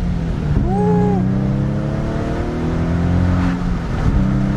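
Infiniti G37 coupe's VQ37VHR V6, breathing through a Fast Intentions exhaust with the factory cats, pulling in gear with its pitch climbing steadily. Near the end a gear change drops it to a lower, steady note.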